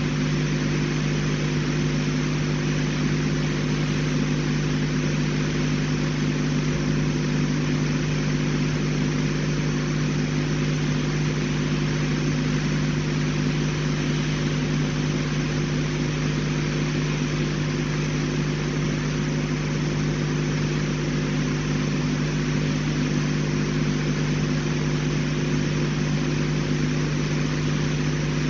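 Steady, unchanging hum made of several fixed low tones over a constant hiss.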